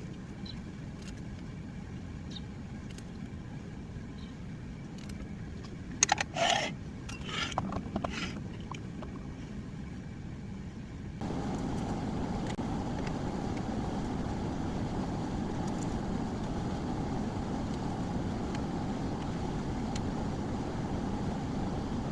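Steady vehicle running noise, with a brief cluster of sharper, higher sounds about six seconds in. About eleven seconds in it cuts suddenly to a louder, steady rumble with a faint held tone in it.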